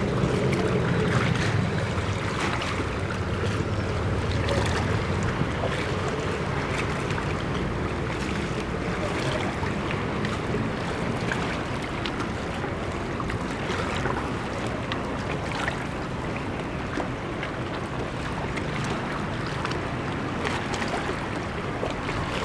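Wind buffeting the microphone, heaviest in the first few seconds, over small waves lapping against the harbour's stone quay and moored boats, with scattered light splashes.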